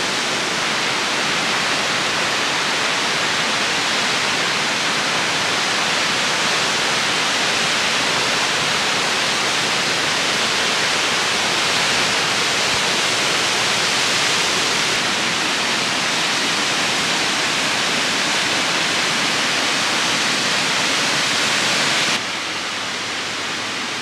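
Fukuroda Falls, a wide multi-tiered waterfall, giving a steady loud rush of falling water. About 22 seconds in it drops suddenly to a somewhat lower level.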